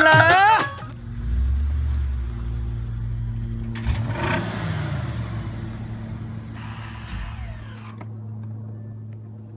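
Convertible car's engine running steadily as it drives off, with a louder rev about four seconds in and a smaller surge near the end. Rap music cuts off in the first second.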